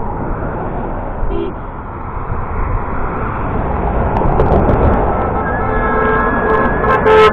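Road traffic passing, growing louder, with vehicle horns starting to honk about five and a half seconds in and continuing to the end.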